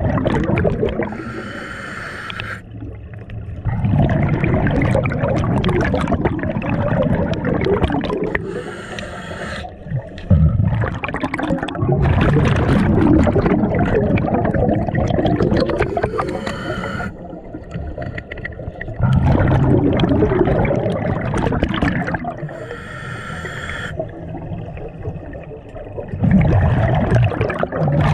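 A diver breathing underwater, with a regular cycle repeating about every six to seven seconds: a short, higher draw followed by a longer, louder rush of bubbles.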